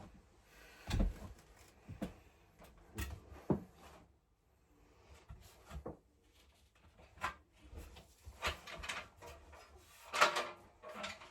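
Irregular knocks, clicks and light clatters of household things being handled, like drawers or cupboard doors, with the loudest cluster about ten seconds in.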